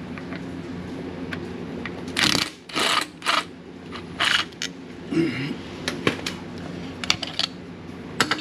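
Metal tools and engine parts clinking and rattling during hand work on the engine, with scattered sharp clicks and several short scraping bursts about two to five seconds in.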